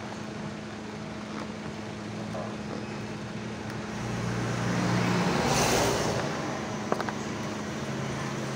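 Road traffic over a steady low hum: a vehicle passes, swelling and fading about four to six and a half seconds in. A few sharp clicks come near the end.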